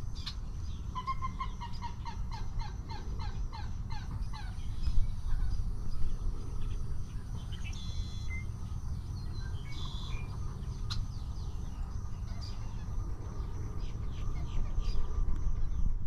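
Wetland birds calling: a run of about a dozen short falling notes, three or four a second, in the first few seconds, then scattered chirps, over a steady low rumble.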